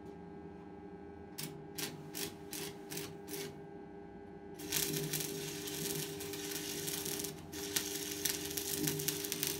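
Stick (arc) welder on steel: a few short crackles as the electrode is struck against the metal to start the arc, then from about four and a half seconds the arc runs with a steady crackling sizzle, breaking off briefly near the middle before carrying on.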